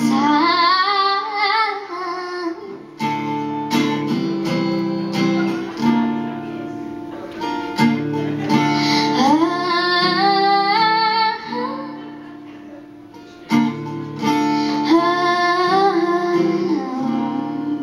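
A young girl singing long, sliding held notes over her own strummed acoustic guitar chords. There is a softer stretch about twelve seconds in before the voice comes back in.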